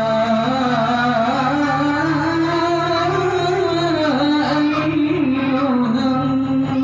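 Voices singing shalawat, an Islamic devotional chant, in a long melodic line that winds up and down in pitch. Beneath it a low tone pulses evenly about three times a second.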